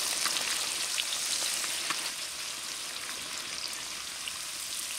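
Sliced onions deep-frying in a kadai of hot oil: a steady sizzle with scattered fine crackles and pops, easing a little about two seconds in. The onions are being fried toward a full brown colour.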